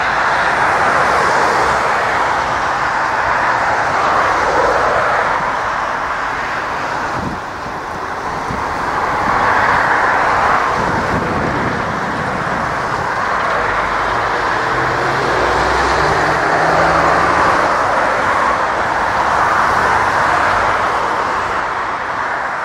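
Jet engines of an Airbus A320-family airliner running loudly as it touches down and rolls out along the runway, a steady rushing roar that swells and eases slowly.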